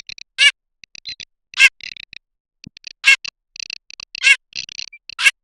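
Garganey calling: five short, loud rattling calls about a second apart, with softer clicking rattles between them.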